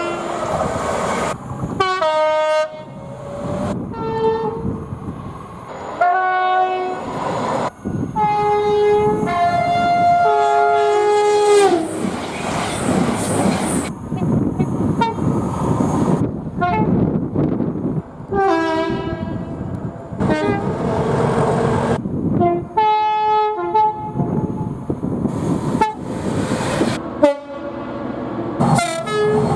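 A string of train horns in about a dozen short clips, each cut off abruptly. Each horn sounds a chord of several steady notes, some dropping in pitch as they fade, over the running noise of passing trains.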